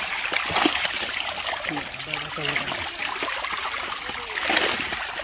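A mass of netted fish thrashing at the water's surface, giving a continuous splashing and spattering of water.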